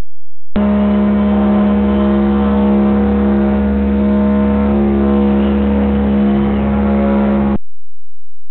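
Distorted, low-fidelity heavy rock recording: a loud, sustained droning guitar note with a shifting figure above it. It starts abruptly about half a second in and cuts off suddenly about seven and a half seconds in.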